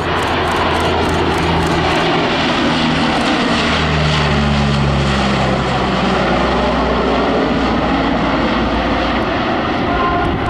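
A CP-140 Aurora's four Allison T56 turboprop engines with Hamilton Standard propellers on a slow, low pass with gear and flaps down: a loud, steady drone, its low propeller tones shifting in pitch a few seconds in.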